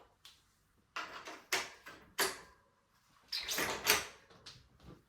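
Handling noises: a series of short scrapes and rustles, starting about a second in, with a louder cluster just before the end.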